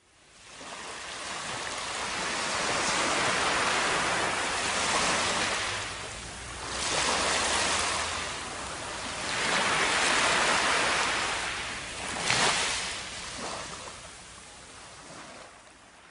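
Surf washing up a sandy beach: a rushing hiss that swells and ebbs with each wave every few seconds. It fades in at the start and dies away near the end.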